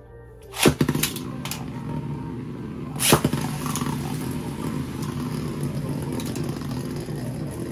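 Chain Kerbeus and Divine Belfyre Beyblade Burst tops launched onto the stadium floor with a sharp clatter about a second in, then spinning with a steady whirring grind. A loud clash about three seconds in as the two tops collide.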